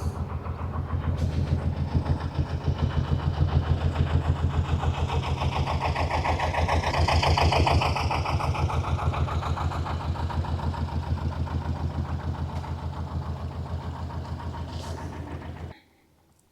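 A slow-running diesel engine, most likely a passing canal narrowboat's, with an even thudding beat that swells a little in the middle and then fades. It cuts off suddenly near the end.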